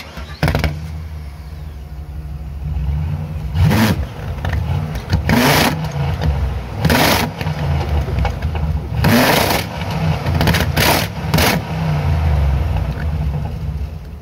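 A GMC Sierra pickup's V8 runs with a cut rubber inner tube flapping on the exhaust tip. The engine rumbles low and steady, and about seven quick throttle blips each set the tube off in a loud, nasty blat.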